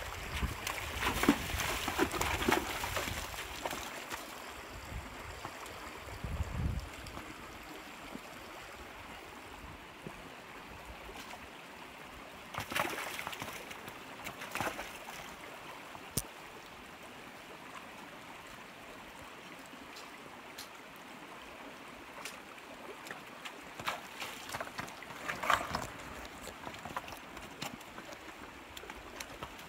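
Shallow mountain creek running steadily over rocks, with a pack mule's hooves splashing and knocking on the stony streambed in short clusters at the start, midway and near the end.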